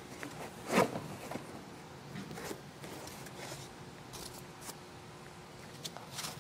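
White foam packing insert scraping and rubbing as it is pulled out of a laser engraver's bed, with one loud scrape about a second in, then lighter rustling scrapes and a few small clicks of handling.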